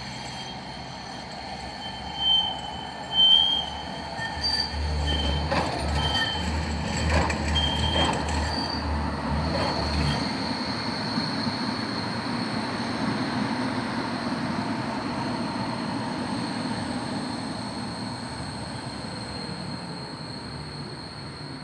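Tram wheels squealing on the rails as a car passes. Short high squeals come in the first few seconds, the loudest about two and three seconds in. Then a steady high squeal rides over the rolling noise, which slowly fades near the end.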